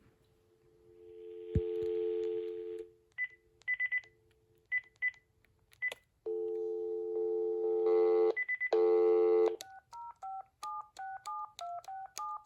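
Telephone dial tone from a 2.4 GHz digital cordless phone handset, a steady low two-note hum. It is broken by short high key-press beeps, and near the end about ten touch-tone (DTMF) digits are dialed quickly, about three a second.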